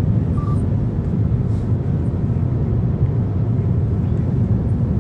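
Steady road and engine noise inside a moving car's cabin, with one short beep about half a second in.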